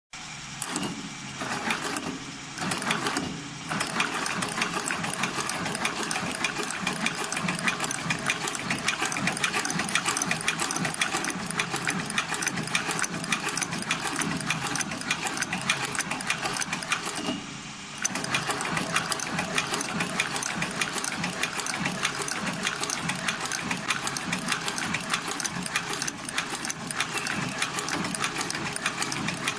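SP998 industrial sole lockstitch machine sewing through a leather shoe sole, its needle mechanism running with a fast, steady clatter. It stops briefly a few times in the first few seconds and once about halfway through, then carries on stitching.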